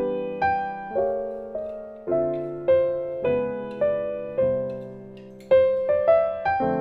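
Background piano music: a slow, gentle melody of single struck notes, each ringing and fading before the next.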